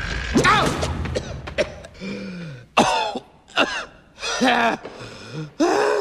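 A cartoon parrot character's raspy voice coughing, hacking and spluttering in a string of short squawky bursts.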